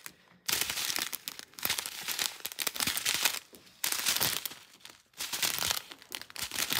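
Small plastic bags of diamond painting drills crinkling as they are handled, in several bursts with short pauses between them.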